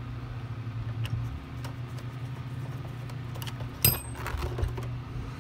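Hand screwdriver turning a screw into the plastic housing of a Shark NV500 upright vacuum, with faint clicks and scrapes. A sharp metallic clink comes about four seconds in. A steady low hum runs throughout.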